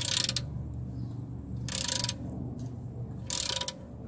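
Socket ratchet clicking in three short bursts about a second and a half apart as the handle is swung back between strokes, snugging the oil drain plug back into the oil pan. A low steady hum runs underneath.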